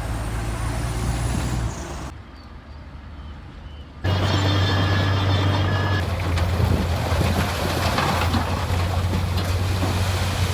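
Heavy truck engine running steadily, dropping away briefly about two seconds in and coming back louder about four seconds in.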